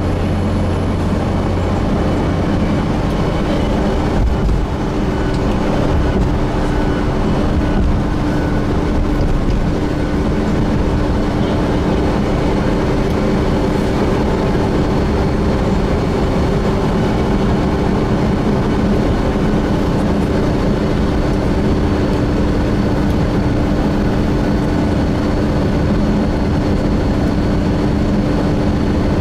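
Gillig Phantom transit bus with a Voith transmission, running at a steady speed and heard from inside: a constant drone of engine and road noise, with a few steady whining tones held throughout.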